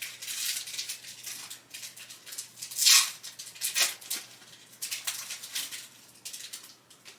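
Plastic trading card pack wrapper being torn open and crinkled, with the cards rustling as they come out: a run of irregular crackles and scrapes, the loudest about three seconds in, dying away near the end.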